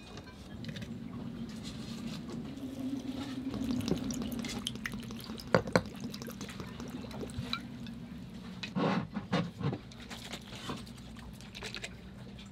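Glass jar of pickled onions being handled: a few sharp clinks and knocks of glass and lid, and liquid sloshing in the jar as its lid is twisted. A steady low hum runs underneath.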